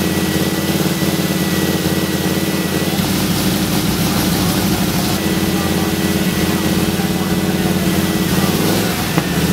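Ford FE V8 in a 1973 Ford F100 idling steadily on its freshly rebuilt Edelbrock carburetor, floats newly set, while the carburetor is adjusted by hand. The note deepens about three seconds in and rises briefly near the end.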